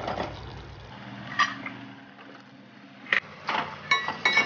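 Metal ladle stirring and scraping in a metal kadai of cooking gravy, with sharp clinks of metal on metal about one and a half seconds in and several more near the end. A faint low hum fills the quieter middle.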